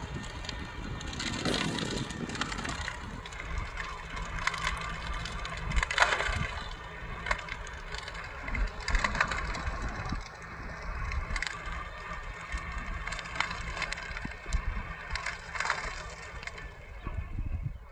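Tractor pulling a manure spreader across a field, its engine a faint steady hum under irregular crunching and crackling noises that peak every couple of seconds.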